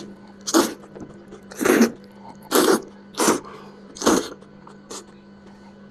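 Loud mouth and breath noises of someone eating spicy lamb head: about five short, noisy bursts roughly a second apart, over a faint steady hum.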